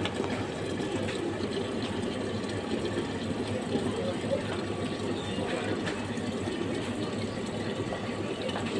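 Water vending machine filling a large plastic bottle: a steady stream of water pouring in over a low, even hum.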